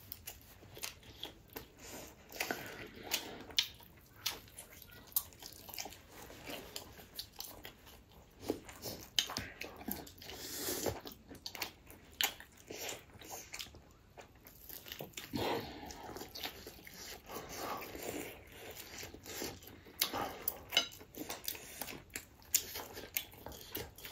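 Close-up eating sounds: food being chewed and crunched, with many irregular bites and wet mouth clicks.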